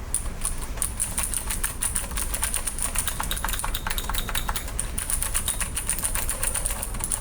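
Typing on a Glorious GMMK Pro mechanical keyboard fitted with Gateron Blue clicky switches: a fast, continuous stream of sharp key clicks.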